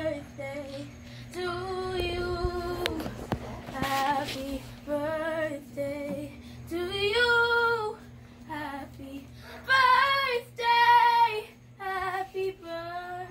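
A girl singing a song to a baby in short sung phrases of held notes, louder about ten seconds in.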